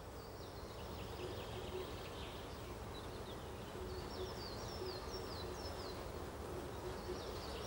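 Faint outdoor ambience with small birds chirping: a quick series of short, high, falling chirps about halfway through.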